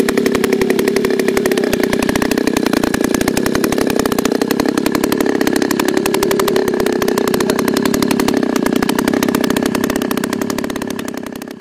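CRGF 15cc two-stroke model-aircraft gasoline engine running steadily during its break-in, a fast, even buzz of firing strokes. The sound fades out near the end.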